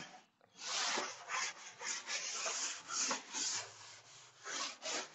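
Felt board duster wiping chalk off a blackboard in quick back-and-forth scrubbing strokes, about three a second, after a brief pause near the start.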